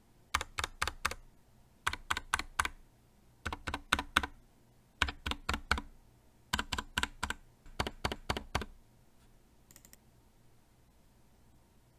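Anne Pro 2 60% mechanical keyboard with Gateron Brown tactile switches being typed on: quick keystroke clicks in short bursts, word by word, with brief pauses between. The typing stops about nine seconds in.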